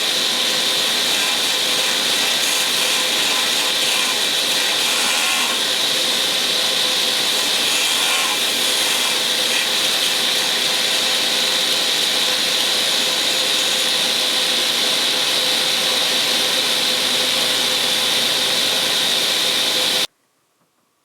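Craftsman table saw running steadily with a high whine, then cutting off abruptly near the end.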